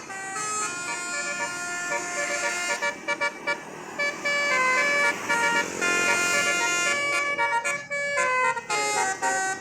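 Bus telolet horn, a Basuri-type multi-tone musical horn, playing a melody of quick stepped notes, choppier with short breaks near the end.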